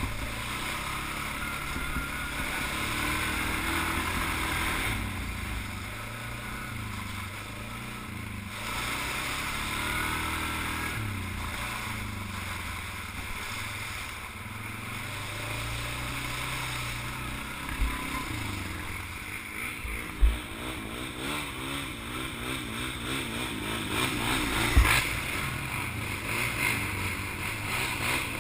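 Suzuki KingQuad 500 ATV's single-cylinder four-stroke engine running as it is ridden along a trail, its pitch rising and falling with the throttle. Three short sharp knocks come in the second half, the loudest near the end.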